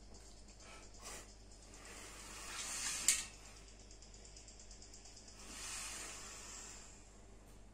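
Man lifting weights on a pulldown machine, breathing out hard through his teeth in two hissing exhalations, one about two seconds in and one about six seconds in. The first swells and ends in a sharp click, the loudest moment.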